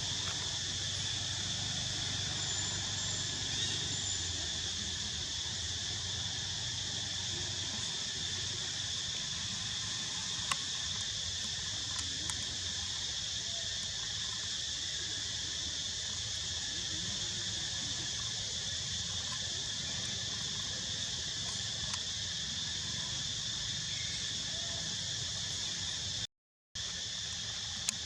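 Steady high-pitched chorus of insects, an unbroken drone, with a few faint clicks; it cuts out for a moment near the end.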